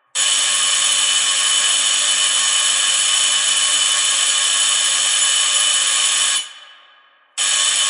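Electric doorbell ringing continuously for about six seconds, then stopping and ringing out for about a second before it starts ringing again near the end.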